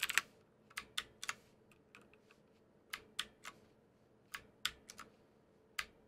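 Mechanical keyboard keys with clicky OUTEMU Blue switches being pressed, a dozen or so sharp clicks coming singly and in quick twos and threes at uneven intervals. These are function-key shortcuts being used to step through the lighting modes.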